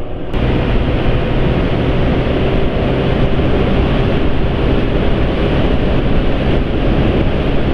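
Motor scooter riding at speed: strong wind rush on the microphone over the engine's steady low hum, which the rider calls smooth. The sound comes in abruptly just after the start.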